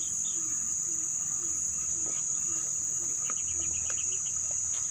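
Steady high-pitched drone of insects in the riverside grass and trees, a cricket or cicada chorus. Under it, a faint low call repeats about twice a second, and a quick run of small chirps comes about three seconds in.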